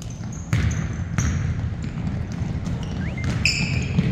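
Basketball game on a hardwood gym floor: a basketball bouncing, with two strong bounces about half a second and a second and a quarter in, and short high sneaker squeaks, one sliding upward near the end, echoing in the large hall.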